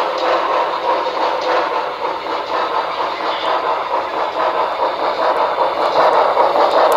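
Model Pennsylvania Railroad steam locomotive running along the layout track. Its steady running sound grows louder about six seconds in as it approaches.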